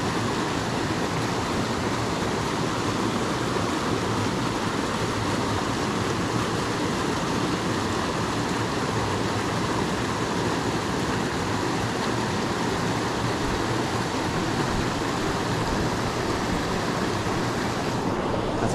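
Mountain creek water rushing steadily over a small rock cascade into a pool.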